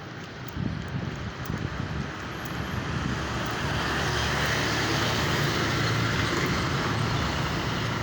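Road traffic and a motor vehicle's engine with wind on the microphone, a steady rushing noise that swells louder about two to four seconds in and then holds.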